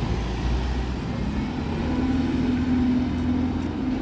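A bus engine running with a steady low hum.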